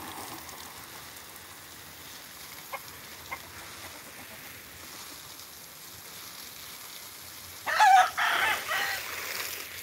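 A rooster crows once near the end, the loudest sound here, over the steady hiss of a garden hose spraying water onto potted plants.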